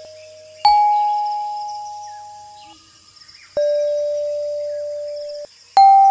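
Single chime-like notes struck one at a time, three in all and each at a different pitch, the middle one lowest; each rings and fades for about two seconds, then stops sharply. Each note is the one the app assigns to a scanned plant or animal.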